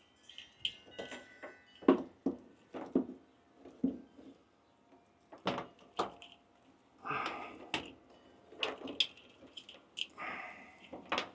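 Irregular knocks, clicks and short rustles of parts and tools being handled during a diesel heater installation.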